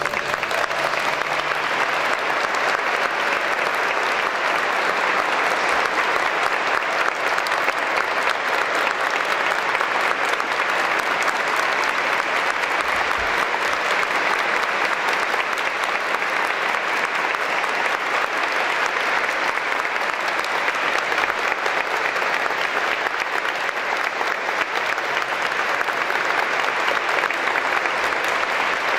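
Audience applauding steadily at the end of a choral and orchestral performance. The last chord dies away under the clapping in the first couple of seconds.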